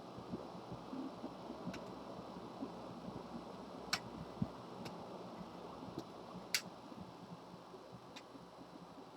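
Small, sharp, scattered clicks and ticks of small plastic and metal model-locomotive parts being handled and fitted, about six in all, over a faint steady hum.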